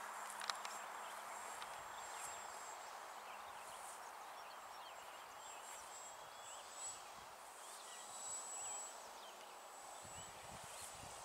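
Faint open-air ambience: a steady soft hiss with scattered small bird chirps throughout and no engine to be heard.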